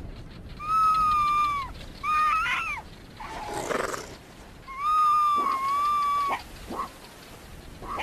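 Cape foxes calling at a honey badger digging into their den: several long, high-pitched whining yelps, each about a second, with a harsh noisy burst between them about halfway through and short yelps near the end.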